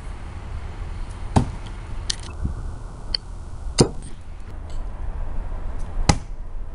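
Thrown knives striking wooden target boards: several sharp thunks, the loudest three about two seconds apart, over a steady low rumble.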